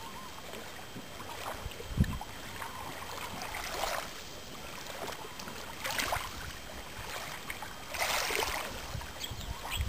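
Kayak paddle splashing softly in the water on its strokes, swelling every couple of seconds, over a steady hiss of lapping water and wind rumble on the microphone. A brief low thump comes about two seconds in.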